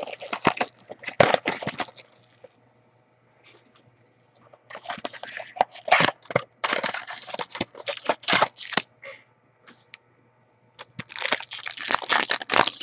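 Packaging of a trading-card mini box being torn open, in crinkling, tearing bursts with sharp crackles, twice broken by a few seconds' pause.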